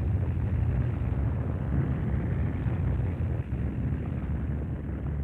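A steady low rumble with a muffled rushing noise over it, easing slightly near the end.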